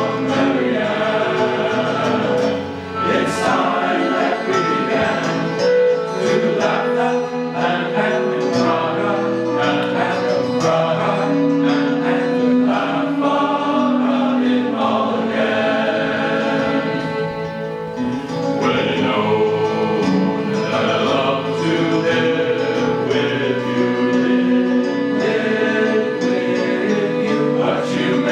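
A choir singing, several voices holding notes together in harmony and moving from chord to chord without pause.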